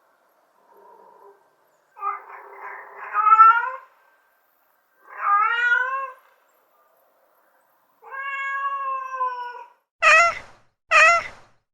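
Domestic cat meowing over and over: a faint short meow, then three longer drawn-out meows, and two short, louder meows close together near the end.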